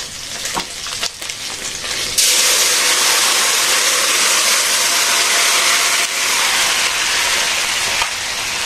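Fried fish sizzling in hot oil in a wok, with a few clicks of the metal spatula. About two seconds in, a wet curry is poured into the hot oil and the pan breaks into a loud, steady hiss of sizzling and steam.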